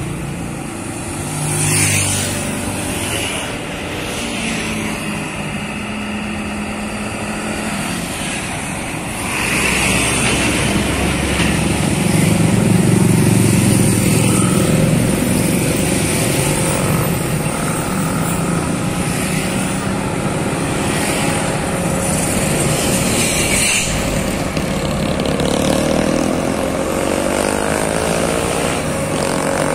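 Road traffic passing close by: motorcycles and cars going past over the steady low drone of a heavy truck's diesel engine. The truck is a Volvo FM12 tractor unit creeping nearer under a very heavy transformer load. Passing traffic swells loudest a couple of seconds in and again for several seconds near the middle.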